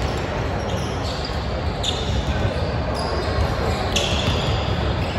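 Basketball sneakers squeaking a few short times on a hardwood gym floor, over the steady hum of a large hall.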